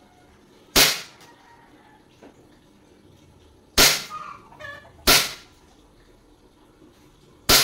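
Gas-powered airsoft pistol firing four single shots, each a sharp crack, spaced unevenly a second to three seconds apart.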